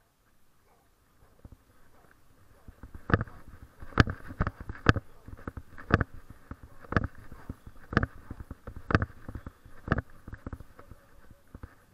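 Footsteps on a concrete sidewalk: a sharp tap about once a second, starting a few seconds in and stopping shortly before the end.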